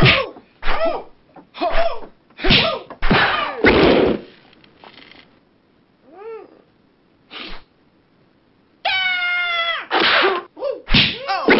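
A string of Bruce Lee-style martial-arts battle cries: short high yells that rise and fall in pitch, some rougher shouts or blows in between, and one long held yell about nine seconds in.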